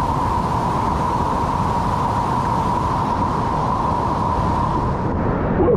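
Waterfall close by: a steady, loud rush of falling water, briefly duller near the end.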